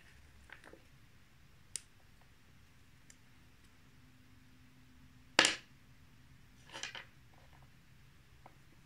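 Cut pieces of Mamba fruit chew handled and set down on a wooden cutting board. There is a faint click near two seconds in, one sharp tap about five and a half seconds in, a short scuffle just before seven seconds, and a faint tick near the end.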